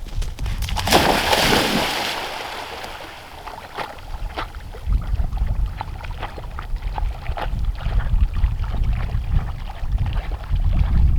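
A retriever dog splashing and wading through shallow marsh water. A loud rush of noise about a second in fades over a couple of seconds, and the dog's uneven sloshing and splashing follows.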